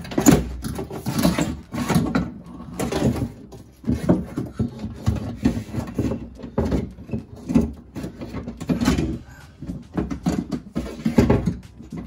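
Irregular knocks, taps and rattles of hands, tools and parts inside a Nissan Xterra's front door, as the power window motor assembly is worked loose and out of the door cavity.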